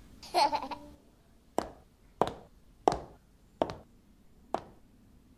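A young child's brief babble, then five sharp, separate taps, a little under a second apart.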